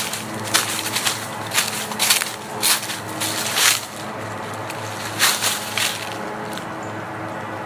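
Footsteps crunching through the forest floor at a walking pace, about two steps a second, stopping about six seconds in. A steady low hum runs underneath.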